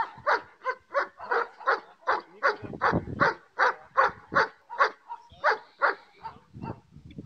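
German shepherd barking repeatedly at a man in protection training, about three sharp barks a second, keeping up a steady rhythm.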